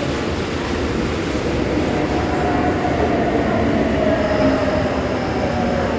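Kintetsu Series 21 electric train heard from inside the car while running at speed: a steady rumble of wheels on rails, with a faint whine that rises slightly in pitch partway through.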